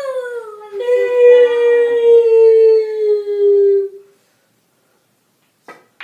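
A long howl that falls slowly in pitch, with a brief break under a second in, and stops about four seconds in.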